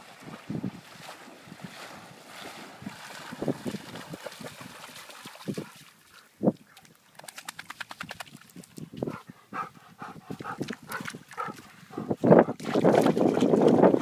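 German Shorthaired Pointer splashing through shallow water with a stick in its mouth, then panting hard with short voiced puffs after the swim. A loud rush of noise near the end.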